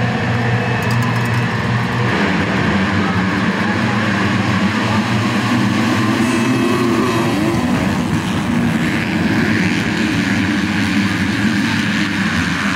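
A full field of motocross bikes at a race start: engines held at high revs on the starting gate, then the pack launching together and accelerating hard, many engines rising and falling in pitch as they shift.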